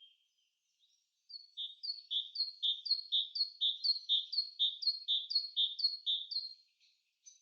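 A songbird singing one long song of about ten repeated two-note phrases, a high note then a lower one, about two phrases a second, starting about a second in and stopping near the end.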